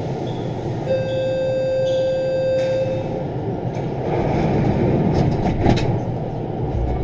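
VAL 208 automated metro train standing at a station platform with its equipment humming. About a second in, a steady warning tone sounds for about two seconds: the door-closing signal before departure. From about four seconds a rushing swell with a few clicks follows as the doors slide shut.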